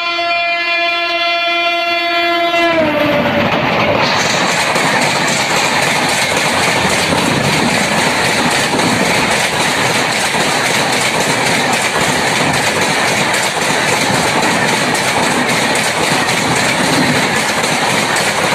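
Express train's horn sounding as the train approaches at speed. The horn's pitch drops sharply about three seconds in as the locomotive passes. Then comes a long, steady rush of wheel and air noise as the coaches speed by close to the track.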